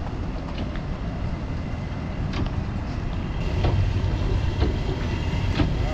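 Quad 450 hp Mercury Racing outboard engines running as a steady low rumble, with a few light knocks.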